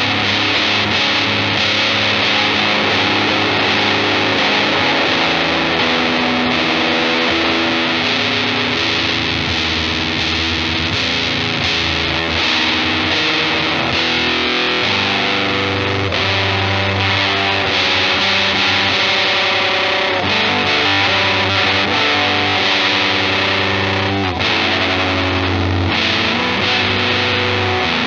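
Electric guitar played through a Death By Audio Apocalypse fuzz pedal set to its War Fuzz mode: heavily distorted, sustained notes and chords that change every second or two.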